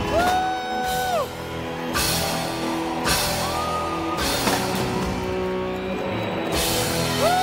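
Southern rock band playing live: drum kit with repeated cymbal crashes under electric guitars and bass. Long high notes are held for about a second at a time, each sliding down at its end.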